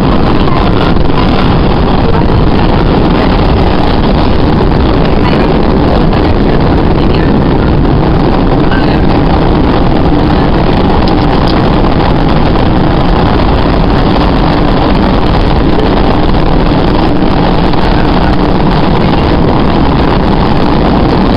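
MBTA Red Line subway train running at speed through a tunnel, heard from inside the car: a loud, steady din of steel wheels on the rails and the car's running gear, with no breaks.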